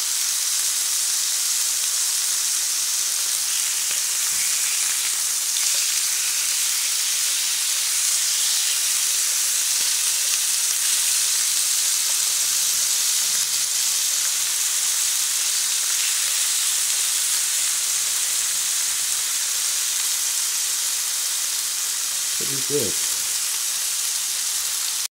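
Marinated chicken pieces frying in oil in a nonstick pan, with a steady hissing sizzle.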